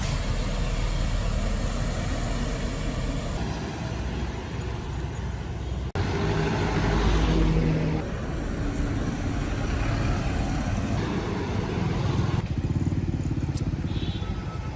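Pickup trucks driving: engine and road noise in several short clips cut together, each changing abruptly. The loudest stretch is a low engine rumble around the middle.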